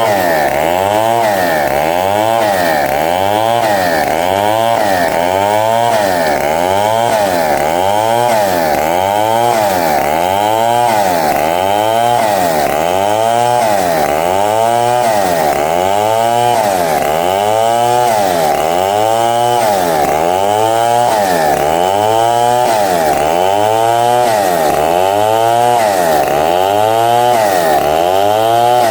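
Power saw running steadily through wood, its tone sweeping up and down in an even pulse about once a second.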